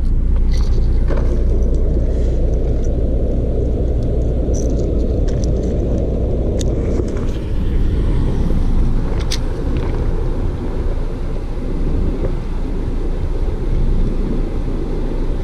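Steady low rumble of wind buffeting the camera microphone, with a few faint clicks of rod and reel handling.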